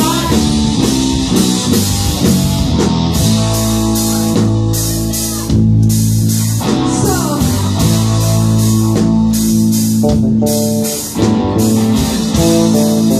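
Live rock band playing: distorted electric guitars over a drum kit, with steady cymbal hits. The loudness briefly dips about eleven seconds in, then the band comes back in full.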